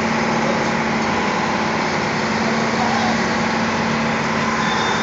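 Boat engine running steadily under way, a constant hum, with a dense rush of wind and water over it.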